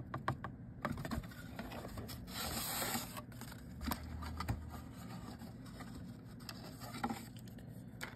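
Hands handling a plastic model kit's parts sprue and its thin, glossy paper instruction sheet: scattered light clicks and taps, with a paper rustle about two to three seconds in.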